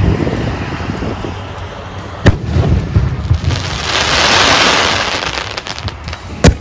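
A Sonny Fireworks 'Flash' 6-inch aerial shell bursts with a sharp bang about two seconds in, echoing. About a second later a dense delayed crackle from its crackling stars swells and fades. Another sharp bang comes near the end.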